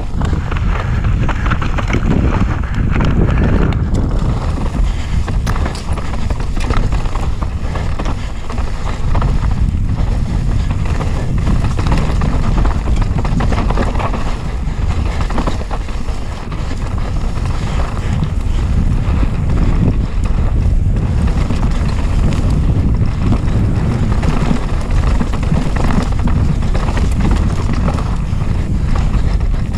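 Wind buffeting the microphone as a mountain bike descends a rough trail at race speed, with the tyres rumbling over dirt and frequent knocks and rattles from the bike over roots and rocks.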